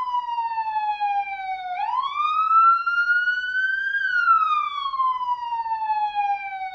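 Police siren wailing. Its pitch falls slowly, sweeps back up starting about two seconds in, then falls again, and starts to rise once more at the very end: a slow rise and fall roughly every four to five seconds.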